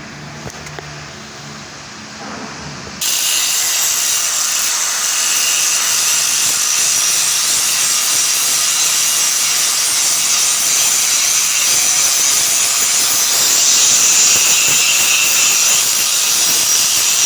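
Stick (SMAW) welding arc struck about three seconds in, after a low steady hum, then a loud, steady crackling hiss as the capping pass is run with 6013 electrode.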